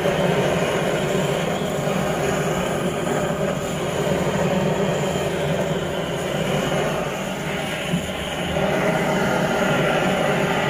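Steady noise of a handheld butane blowtorch flame burning, played over the skin of a buffalo foot to singe off the hair.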